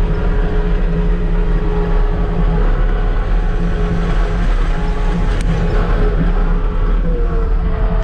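Skid steer loader's engine running steadily as it drives, heard from inside the cab, with a faint whine that rises in pitch about seven seconds in.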